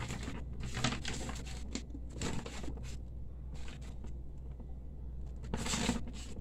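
Sheets of paper rustling as they are handled and turned, in irregular short bursts, the biggest near the end.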